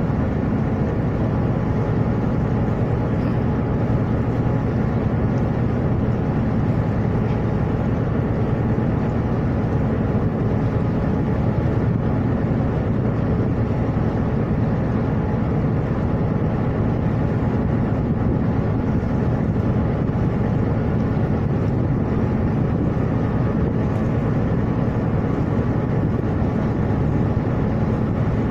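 Steady low rumble of a ship's engines and machinery heard from on deck, an even hum with no change in level.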